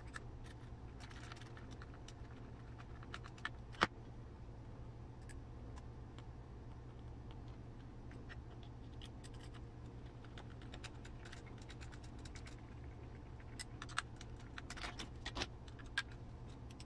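Scattered small clicks and taps of a 2 mm ball-head hex driver and the rock slider parts on a scale RC crawler's chassis as the sliders are screwed on. The loudest is a sharp click about four seconds in, and more clicks bunch up near the end, over a low steady hum.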